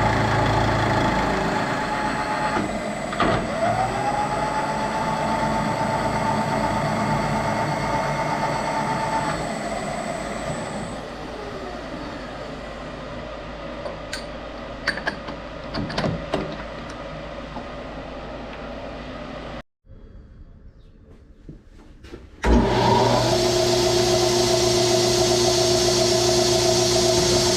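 Machine tool motor running: its whine rises in pitch about three seconds in and settles back down near ten seconds, with a few sharp ticks in between. After a short quiet spell a motor starts abruptly and runs steadily to the end.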